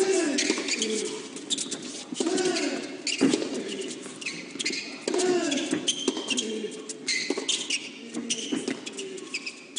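Tennis rally on an indoor hard court: sharp pops of racquets striking the ball at irregular intervals, with sneakers squeaking high and short on the court surface.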